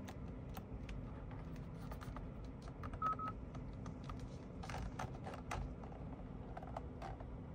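Faint clicks of steering-wheel buttons and the roller switch being pressed on a Hyundai Tucson, with a short two-part electronic beep from the car about three seconds in. A few brief rustling scrapes follow around five seconds in.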